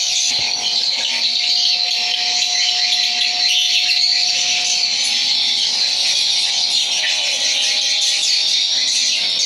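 Swiftlets twittering inside a swiftlet house: a dense, continuous mass of high, fast chirps, with a steady hum underneath.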